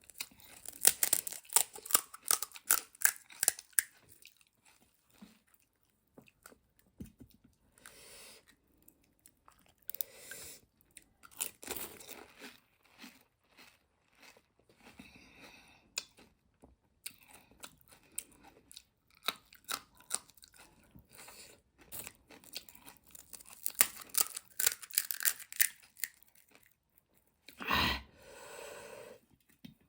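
Crisp pani puri shells crunching and being chewed, in clusters of sharp crunches with pauses between mouthfuls. A single louder, fuller sound comes near the end.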